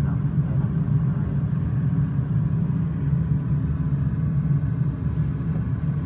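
Steady low rumble of an Airbus A320 flight simulator's simulated engine and ground-roll sound as the aircraft taxis onto the runway.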